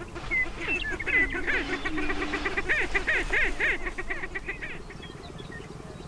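Greater prairie-chickens calling on a lek: a chorus of quick high cackles and whoops, thickest from about one to four seconds in, over the males' low booming hoots. It thins out near the end.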